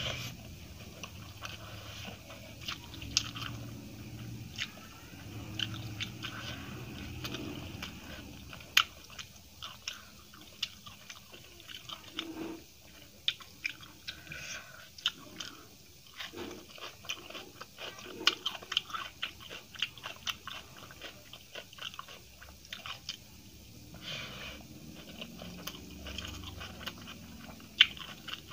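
Close-miked eating by hand: steady chewing with many sharp, wet mouth smacks and crunches.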